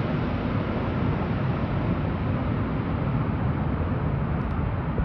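A large jet airliner coming in to land: a loud, steady rush of engine and air noise that slowly grows duller.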